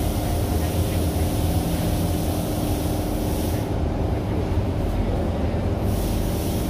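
SMRT C151 train car standing at the platform with its doors open: a steady low hum from its onboard equipment, with a faint steady tone over it. A higher hiss drops away for about two seconds midway.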